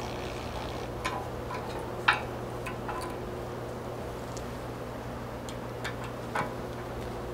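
Hex key and wrench clicking against a small stainless bolt and nylock nut while a rock light is tightened onto a steel rock slider: a few light, irregular metal clicks, the sharpest about two seconds in, over a steady low hum.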